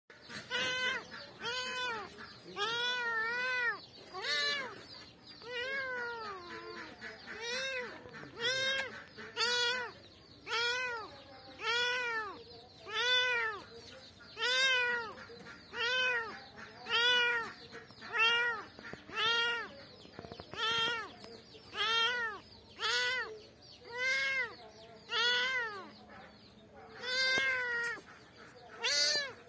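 Kitten meowing over and over, about one call a second, each call rising and then falling in pitch.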